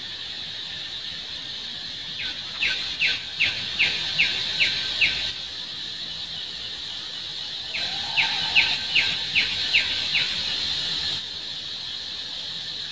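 A bird calling in two runs of about seven short falling whistled notes, roughly three a second, over a steady high insect buzz.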